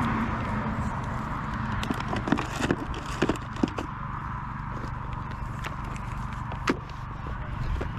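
Steady outdoor background noise at a market, with a few sharp clicks and knocks about two to four seconds in and one more near the end.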